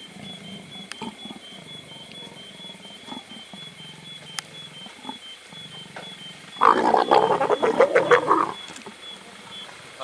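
A leopard snarling and growling: one loud, harsh, rasping outburst of about two seconds, starting a little past the middle.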